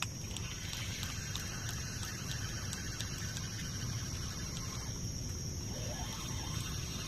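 Steady high-pitched drone of insects over a low background rumble, with faint ticks and a short rising call about six seconds in.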